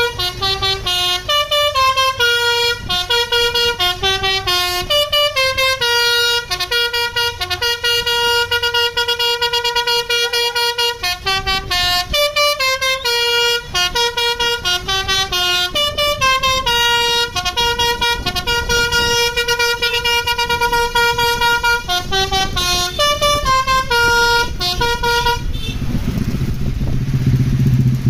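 Telolet basuri horn on a Sumber Jaya coach playing a long, fast melody of bright horn notes that step up and down in pitch several times a second. The tune stops about three seconds before the end, leaving only engine noise.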